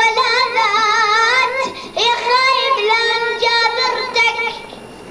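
A child's high voice singing an Arabic Shia lament (latmiya) unaccompanied, in two long ornamented phrases with wavering pitch. The second phrase ends shortly before the close.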